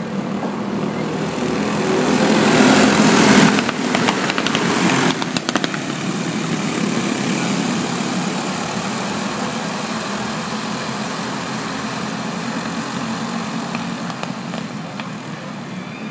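A pack of dirt-track racing go-karts running at full throttle. Their small engines are loudest as the field passes close about two to five seconds in, then settle into a steady, fainter drone as the karts circle the oval.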